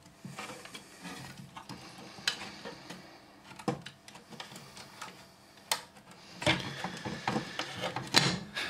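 Scattered clicks, knocks and rattles of plastic and metal parts on a Zebra P320i card printer being handled and taken apart, sparse at first and busier over the last couple of seconds.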